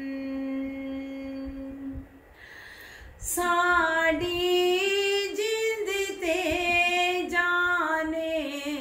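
A woman singing a Punjabi naat unaccompanied: she holds one long steady note, breaks off briefly about two seconds in, then starts a new phrase with ornamented, wavering pitch.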